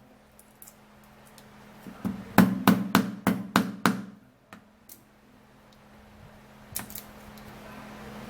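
A run of about seven sharp knocks, roughly three a second, from a knife chopping bitter kola on a cutting board, with a low steady hum underneath.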